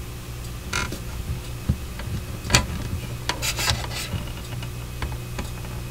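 Scattered light clicks and rubbing from a plastic model-kit fuselage part being handled, the sharpest click about halfway through, over a steady low hum.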